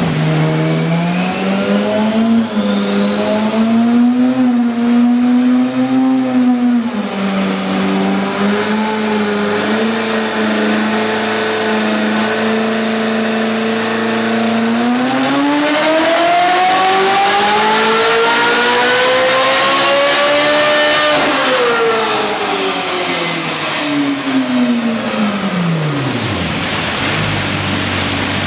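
Ferrari 458 Speciale's 4.5-litre V8 running on a chassis dyno through a Fi Exhaust valvetronic cat-back exhaust. It holds fairly steady revs for about the first half, then climbs in one long full pull to high revs about three-quarters of the way in, and winds back down near the end.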